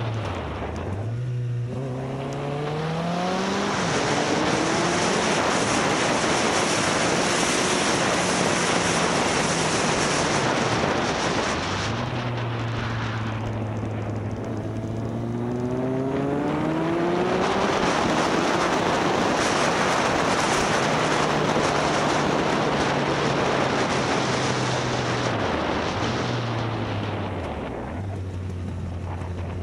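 Motorcycle engine under way, its revs dipping and then climbing steadily three times: just after the start, about twelve seconds in, and near the end. A dense rush of wind and road noise lies over it throughout.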